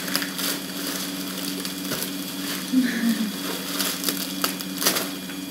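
Plastic mailer bag crinkling and crackling as it is pulled open by hand, with a few sharper crackles in the second half.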